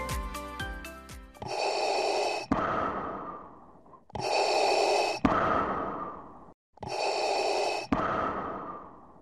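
Music ends about a second in, then a logo sound effect repeats three times: each is a noisy whoosh about a second long that ends in a sharp click and fades away.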